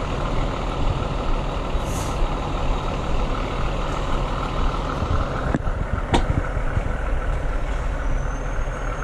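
Heavy truck's diesel engine running steadily, with a brief hiss of air about two seconds in and two sharp clicks about halfway through.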